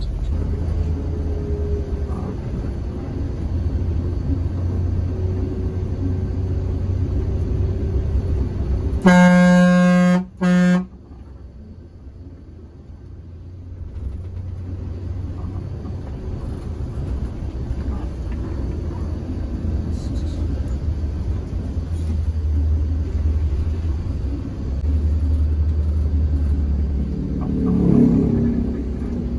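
Mercedes-Benz OH 1626 bus running along a winding road, a steady low engine and road rumble. About nine seconds in a vehicle horn honks twice, a longer blast then a short one. After the horn the rumble drops away for a few seconds and then builds back up.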